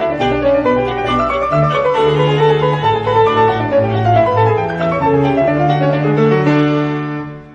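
Instrumental background music, a piano melody over low held notes, fading out near the end.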